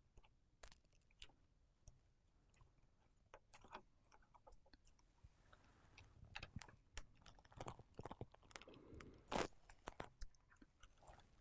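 Faint scattered clicks and light scraping from small tools and parts being handled on an opened iPhone while a flex cable is reconnected, with one sharper click about nine seconds in.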